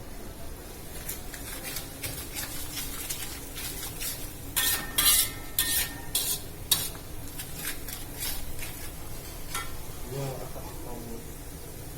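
Utensil stirring and scraping food in a frying pan over steadily sizzling oil, with a cluster of louder clanks against the pan about halfway through, one of them ringing briefly.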